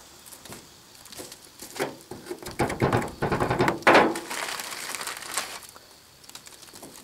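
Close handling noise as wet sodium-silicate core sand is packed by hand into a small foil-lined core box, with rustling and crinkling of a plastic bag. It is loudest about three to four seconds in.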